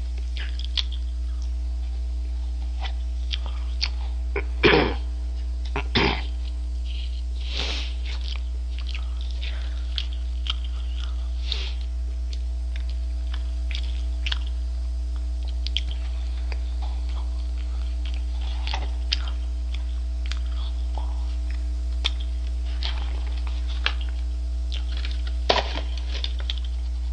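Eating McDonald's French fries and handling the paper fries carton: scattered small crackles, rustles and chewing, with a few louder rustles about five and six seconds in and again near the end, over a steady low electrical hum.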